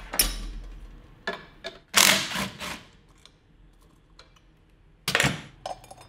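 Metal parts clinking and clattering against each other: a steel sprocket and its bolts and nuts being handled on a mini bike wheel hub. Several sharp clatters, the loudest about two seconds in and another about five seconds in, with light ticks between.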